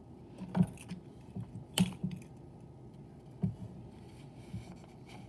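A few scattered light knocks and clicks from handling at a desk, the sharpest about half a second in and just under two seconds in, another a little after three seconds, over a faint steady background.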